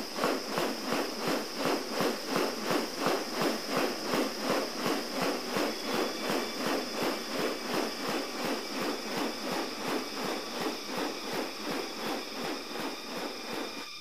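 Wings of a displaying male riflebird swishing in rhythm, about three rustling swooshes a second, as it swings its spread, rounded wings side to side in courtship. A steady high insect drone runs underneath.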